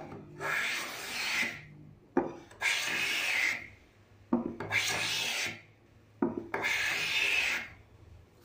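Wooden hand plane taking four strokes along a board, each starting with a sharp knock as the plane meets the wood, followed by about a second of scraping hiss as it cuts a shaving.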